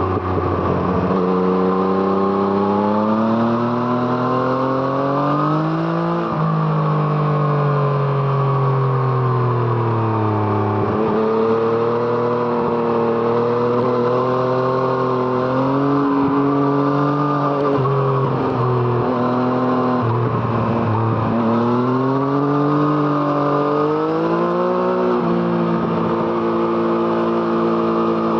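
Yamaha MT-09's inline three-cylinder engine running through an Arrow Thunder exhaust under way. The revs climb and fall repeatedly, with sudden drops in pitch as it shifts up and longer falling stretches as it slows.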